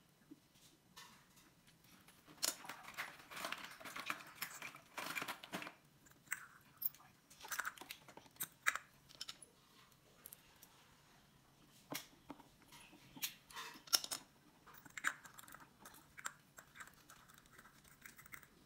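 Faint clicks and crinkles of thin aluminium: steel pliers bending a beverage-can pull-tab, and the cut aluminium can pieces being handled. The sounds come on and off in small clusters, with a sharper single click about midway.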